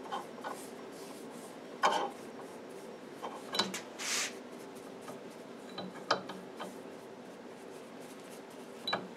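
A few light clicks and knocks of steel rifle parts being handled and set down on a metal workbench, with a short rubbing swish about four seconds in, over a faint steady hum.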